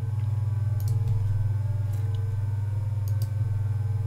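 About four faint computer mouse clicks over a steady low electrical hum.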